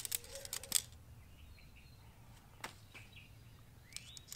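Folded alloy tent pole sections clicking and clinking together as they are handled: a few sharp clicks in the first second, a single one around the middle, and more near the end.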